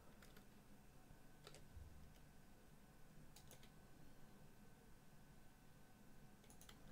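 Near silence broken by a few faint clicks of a computer mouse and keyboard, several in quick pairs: just after the start, about a second and a half in, around three and a half seconds in, and near the end.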